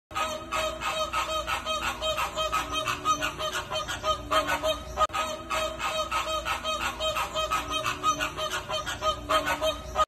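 A flock of flamingos calling: many short honking calls overlapping, several a second, in a steady clamour.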